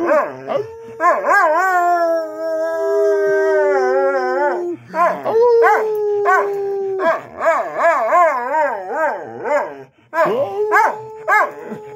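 Dog howling in long drawn-out calls whose pitch wavers up and down, with short breaks about halfway through and again near the end.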